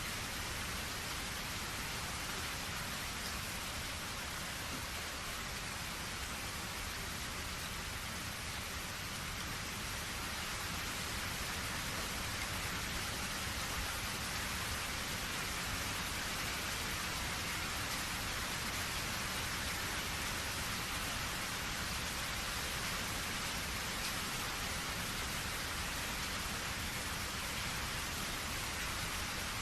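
Steady rainfall: an even hiss of rain with no single drops or other events standing out.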